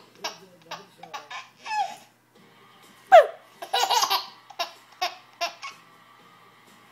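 Baby laughing: short laughs through the first two seconds, then a big belly laugh a little after three seconds that opens with a high falling squeal and runs on in quick bursts before fading to a few small laughs.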